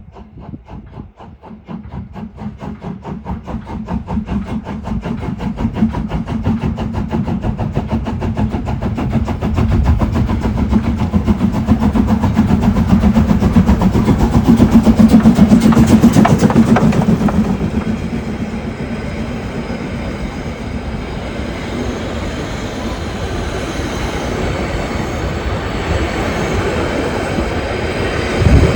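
Narrow-gauge 2-10-2 steam tank locomotive 99 7240-7 starting away under load, its exhaust beats quickening and growing louder as it pulls out. It passes its loudest about halfway through, then the beats fade into the rolling of the carriages on the rails. There is a brief low thump near the end.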